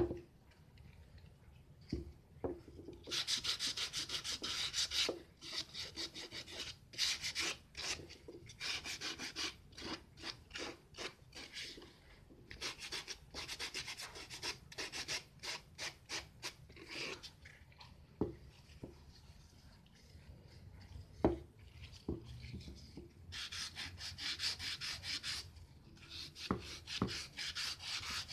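A wooden casting pattern for a two-stroke piston, made mostly of plywood, is rubbed by hand on sandpaper to smooth and true it. The rubbing comes as quick, scratchy back-and-forth strokes in runs of a few seconds, with pauses between them. A few short knocks are heard.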